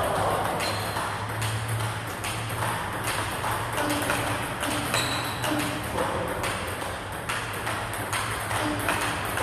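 A table tennis rally: the ball clicks off a Butterfly Fan Zhendong ALC blade with Dignics 09C rubber and the opponent's bat and bounces on the table, about two sharp hits a second in an even rhythm, over a low hum.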